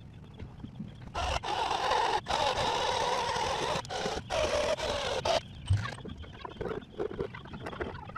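Handheld power tool with a small abrasive disc scrubbing old sealant off the fiberglass around a boat's thru-hull exhaust hole. A harsh grinding noise starts about a second in, pauses briefly a few times, and stops after about five seconds. Lighter handling knocks and a thump follow.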